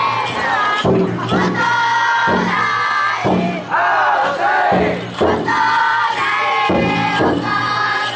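A crowd of futon-daiko bearers chanting and shouting in unison in long, sliding calls, with the float's drum struck in sharp beats at uneven gaps between the calls.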